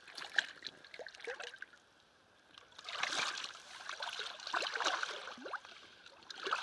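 Shallow river water splashing and sloshing around hands and a large salmon held in the current. There are scattered splashes in the first second or so, a short lull, then a longer stretch of sloshing from about three seconds in.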